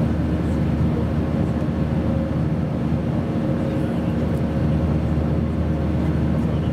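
Steady cabin noise of an Airbus A320 airliner in flight: the drone of its IAE V2500 turbofan engines and the rush of air over the fuselage, with a few steady low hum tones and no change in pitch or level.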